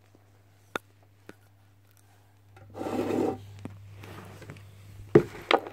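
Handling noise from a metal Pokémon card tin. There are two light clicks, then a scraping rub lasting under a second, a softer scrape after it, and two sharp knocks near the end.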